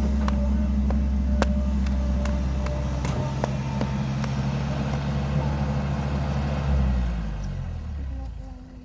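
Diesel engine of heavy earthmoving machinery running steadily, with a few sharp metal clanks in the first few seconds. The engine sound falls away over the last two seconds.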